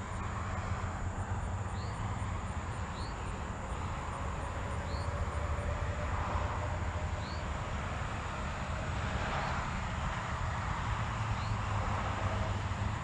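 Parkzone T-28 electric radio-control plane in flight, its motor and propeller drone swelling and fading as it passes back and forth.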